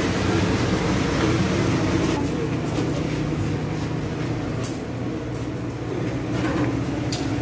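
Steady low drone of a ferry's engines, heard from its passenger deck, with a few light knocks near the end.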